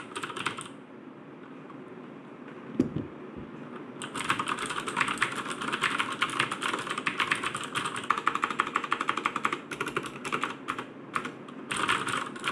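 Typing on a Logitech G610 mechanical keyboard with Cherry MX Blue switches, each keystroke a sharp click. After a lull with one low thump about three seconds in, fast continuous typing runs from about four seconds, breaks briefly near ten seconds, and picks up again near the end.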